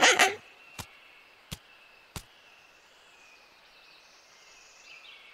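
Faint outdoor background ambience, a soft hiss with a thin high-pitched tone. Three short, sharp clicks come in quick succession in the first two seconds or so.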